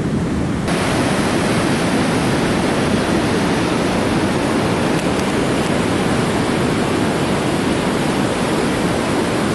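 Steady rushing noise of surf on a sandy beach, which turns hissier abruptly just under a second in.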